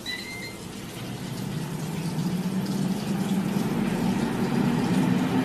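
Ninja Foodi two-basket air fryer giving a short beep as it is started, then its fan running with a steady hum that grows louder and slightly higher in pitch as it spins up.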